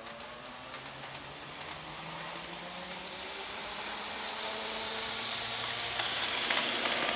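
N-gauge second-generation DMU model train running at full throttle, its small motor whining and its wheels clicking lightly on the rails, growing steadily louder as it comes close. Its top speed is capped by decoder CV 5 set to 150.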